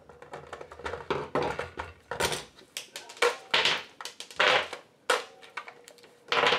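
Plastic Nerf blaster being handled and AA batteries pulled out of it: a string of small clicks, rattles and clacks as the batteries come out and are dropped onto the workbench.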